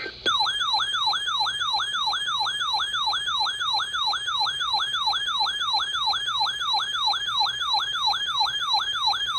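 Emergency Alert System attention signal in a siren-like form. A loud tone sweeps sharply downward about three times a second, over and over without a break, and starts a moment in.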